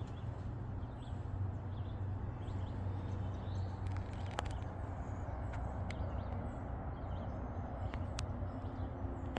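Outdoor ambience: a steady low hum and noise with faint bird chirps and a few sharp clicks.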